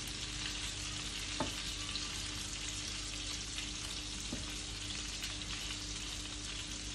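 Minced-veal-and-cheese patties sizzling steadily in hot oil in a frying pan as they are turned with a spatula, with two light taps of the utensils in the pan.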